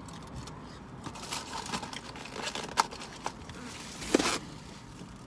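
Foil food wrapper crinkling and rustling in the hands while fried plantain is eaten, with two sharper crackles about three and four seconds in.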